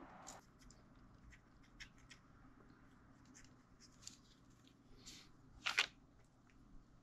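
Faint scattered clicks and light handling noises of small hobby tools and model parts at the workbench, with one louder click near six seconds in.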